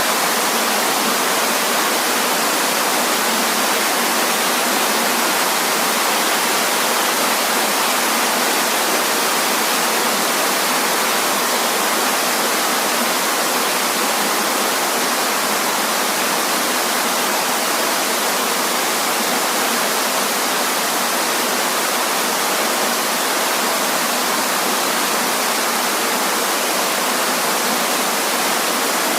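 Waterfall: a steady, even rush of falling water, bright and hissy with little deep rumble.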